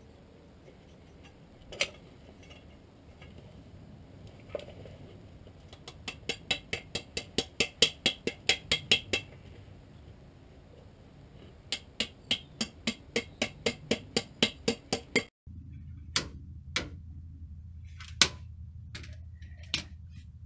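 Hand tools working on a Land Rover Defender's track rod end: two single knocks, then two runs of sharp, even metal clicks about five a second, each lasting about three seconds, and a few scattered knocks near the end.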